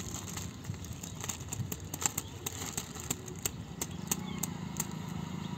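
Plastic bag holding live fish in water crinkling and clicking as it is held up and handled, in a quick run of sharp, irregular clicks. A motorcycle engine hum grows about four seconds in.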